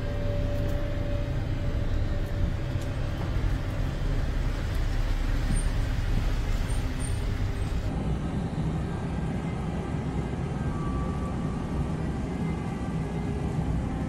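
Steady outdoor noise with a low rumble, like road traffic, and no voices. The sound changes character about eight seconds in.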